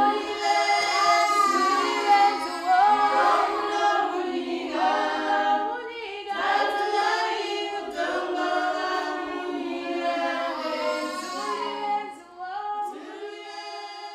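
A group of women singing together unaccompanied, several voices holding long notes; the singing gets quieter near the end.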